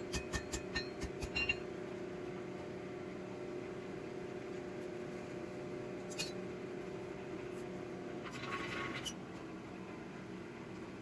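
A hammer ringing on an anvil in quick light blows, several a second, stopping about a second and a half in; then a steady hum, with a short hiss near the end.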